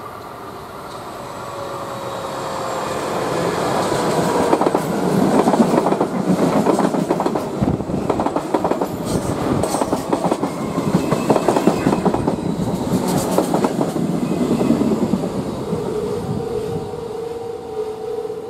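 A PATCO Speedline stainless-steel rapid-transit train approaches and passes close by, its wheels clacking rapidly over the rail joints. The sound grows louder over the first few seconds, is loudest through the middle, and fades as the train moves on. A steady tone comes in near the end.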